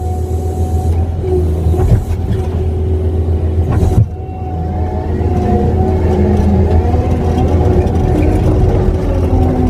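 Kubota skid steer's diesel engine running steadily under a loud, even hum, with two sharp knocks about two and four seconds in.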